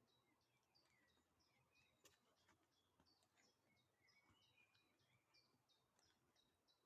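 Faint bird song: many short, high chirps and trilled notes, several birds calling at once, with a quick run of repeated notes near the end and a few faint clicks.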